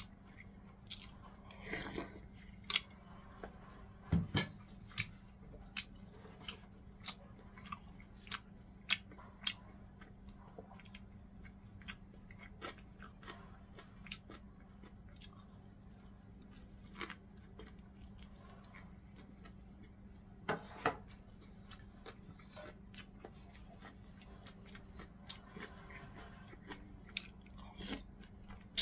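A person chewing and eating food, with scattered small clicks and crunches, over a steady low hum.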